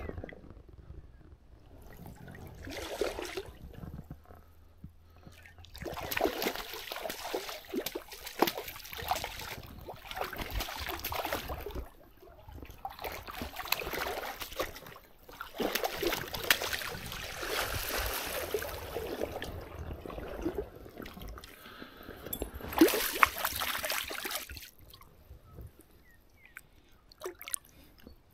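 Water splashing and sloshing in irregular bursts a few seconds long, with short quiet pauses between.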